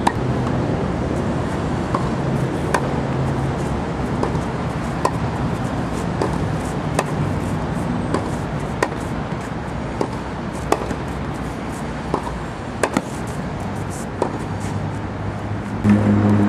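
Tennis balls struck by racket strings and bouncing on a clay court during a rally: sharp pops every second or two, over steady background noise.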